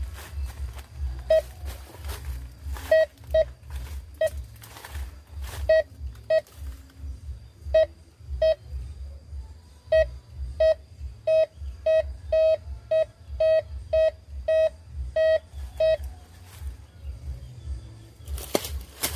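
Metal detector beeping: short, clear beeps on one mid-range note, scattered at first, then a quick run of about one and a half beeps a second, signalling a metal target under the search coil. A brief scraping noise near the end.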